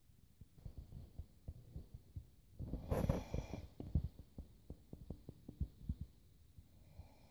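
Handling noise from a handheld camera being moved down close to the microphone: irregular low thuds and knocks, with a louder rustling scrape about three seconds in.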